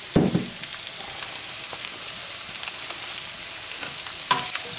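Vegetables and lo mein noodles sizzling steadily in hot olive oil in a wok. A loud knock comes just after the start and a smaller click near the end.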